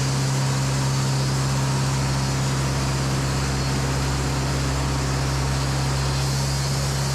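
Echo 45HD2 band sawmill running through a wide cut in an oak log: a steady machine hum under a continuous hiss of sawing.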